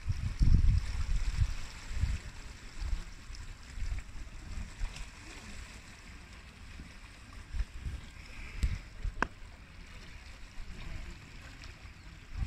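Wind gusting on a phone microphone in uneven rumbles, strongest about half a second in, over a faint steady hiss, with one short click about three-quarters of the way through.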